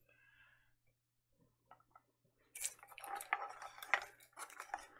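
Printed wrapper crinkling as it is peeled off a plastic Mini Brands toy capsule, with quick irregular clicks and crackles. The first half is near silence with a few faint ticks, and the handling starts about halfway in.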